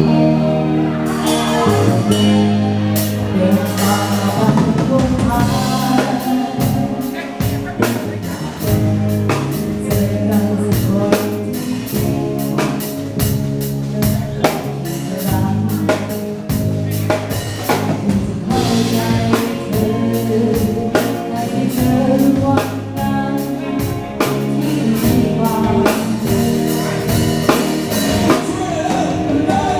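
Live band playing a dance song: a steady drum-kit beat under bass, instruments and singing.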